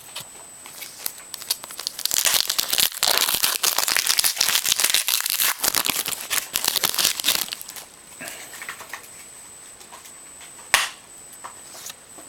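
Trading card pack wrapper being torn open and crinkled, a dense crackling rustle for about five seconds, then lighter handling rustles and a single sharp click near the end.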